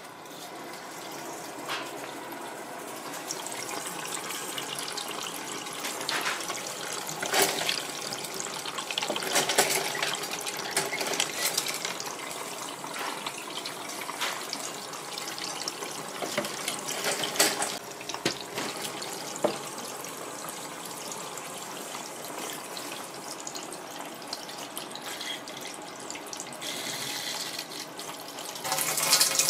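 Water spraying and splashing into the clear plastic housings of a multi-stage water filter as the system fills for the first time. The rush of water builds over the first few seconds, with sharper splashes now and then, and gets louder near the end.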